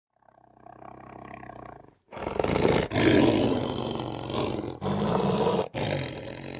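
Big cat roaring: a quieter low growl for about two seconds, then loud roars broken by three brief gaps, cutting off abruptly at the end.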